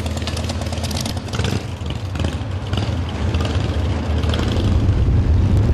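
Motorcycle engines running, getting louder over the last two seconds.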